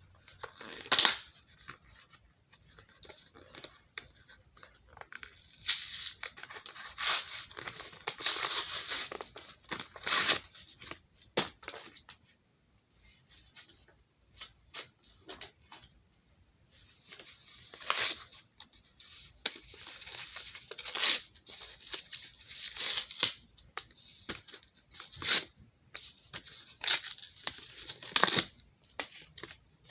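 Packaging being torn and crinkled open by hand, in irregular rustling bursts with sharp crackles and short pauses between.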